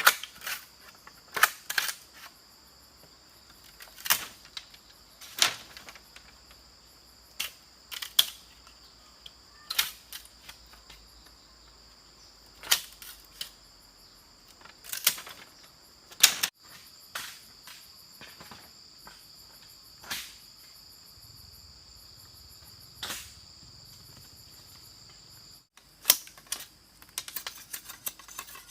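Steady high insect chorus, cicadas or crickets, with irregular sharp knocks every second or two from bamboo being chopped or struck, and a quick run of small clicks near the end.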